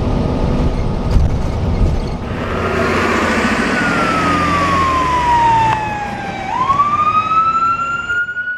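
Low rumble of a moving bus heard from inside. About two seconds in it gives way to a loud siren-like wail that falls slowly for about three seconds, swings back up quickly, holds high and then cuts off.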